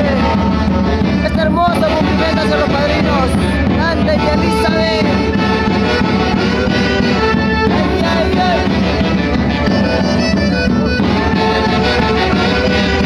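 Folk orchestra playing, with horns carrying the melody; the music is loud and steady throughout.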